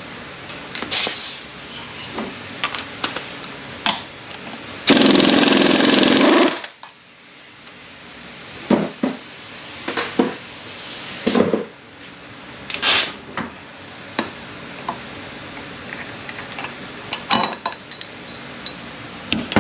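A pneumatic impact wrench runs in one short burst, about five seconds in, spinning off a large fastener on an A650E automatic transmission. Scattered metal clinks and knocks of tools and parts come before and after it.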